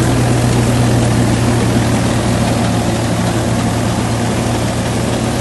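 Swaraj 963 4x4 tractor's diesel engine running steadily under load while it drives a tractor-drawn straw reaper, whose cutting and threshing mechanism adds a loud, dense rushing noise over the engine's low drone.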